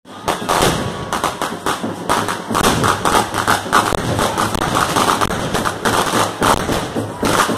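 A string of firecrackers going off in a rapid, irregular run of sharp cracks.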